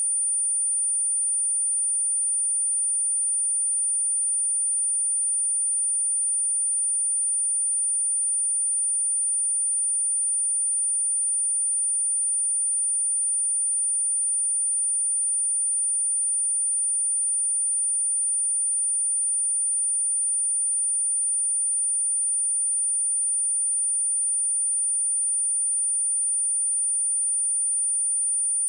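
A steady, high-pitched 9282 Hz sine-wave test tone, one pure tone held without change, as used for testing speakers and for clearing water and dust out of them.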